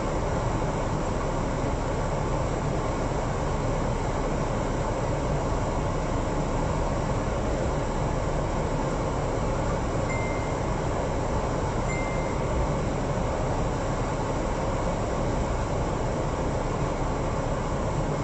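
Steady rushing noise heard from inside a car's cabin as it sits in a flooded street, with two short high beeps about ten and twelve seconds in.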